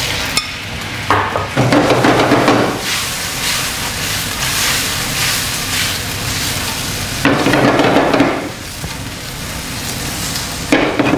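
Tagliatelle, duck and vegetables sizzling in a hot wok over a gas burner as the wok is tossed. There are two louder, rougher bursts, about a second in and again about seven seconds in.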